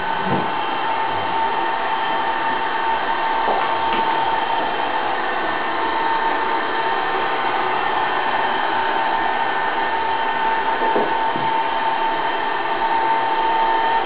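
A320 robot vacuum cleaner running: its fan and brushes make a steady whir with a high, even whine.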